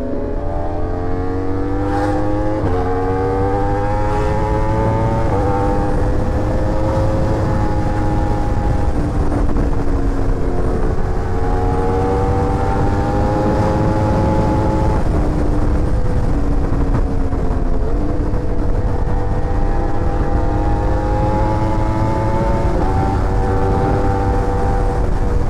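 Superbike engine accelerating hard, its pitch climbing and then dropping back sharply at each upshift, twice in the first five seconds, then holding and rising again with more shifts, over a steady low rumble.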